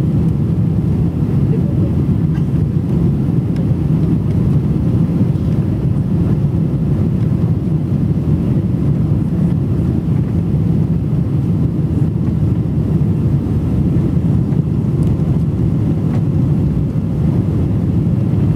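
Steady low rumble inside the cabin of a Boeing 777 on landing approach, from the engines and the air rushing over the extended wing flaps, even in level with no sudden changes.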